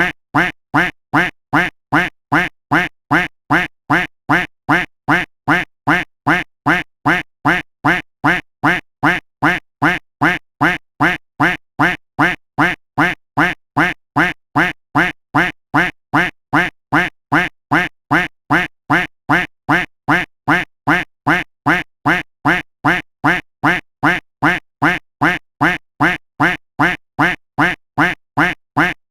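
The same duck quack sound effect played again and again at an even pace, about two quacks a second, each one identical.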